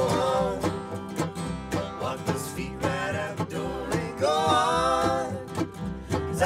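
Acoustic bluegrass band playing live: a steadily picked five-string banjo and other plucked strings under a woman's lead vocal, with a man's voice singing along.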